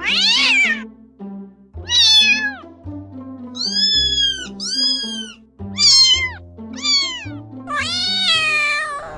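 Domestic cat meowing repeatedly, about seven separate meows, most of them falling in pitch, over background music.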